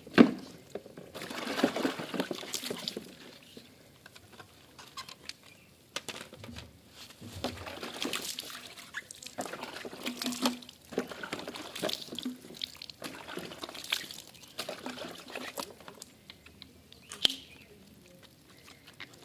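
Water pouring and splashing in irregular bursts as dry vacuum cleaner parts are rinsed by hand, with a sharp knock right at the start.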